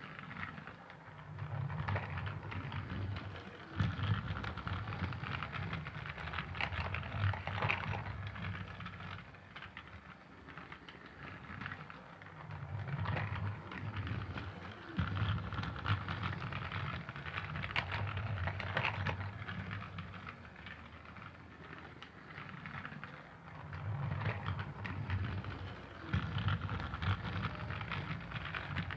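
Thomas the Tank Engine toy train running: a low motor hum with rapid clicking and rattling that grows louder and fades again about every ten seconds, as if it circles a track past the microphone.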